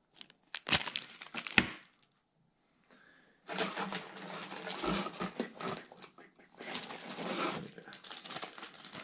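Clear plastic bags crinkling and rustling as bagged fishing lures are handled and lifted out of a cardboard box. A few sharp clicks come first, then a short pause before the crinkling.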